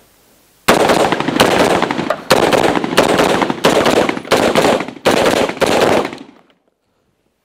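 5.56 mm rifle firing a rapid string of about sixteen shots, many in quick pairs, each with a short echo; the firing stops about six seconds in.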